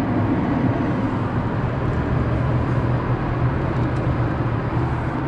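Steady road and engine noise inside a car's cabin while driving at highway speed, with a constant low hum underneath.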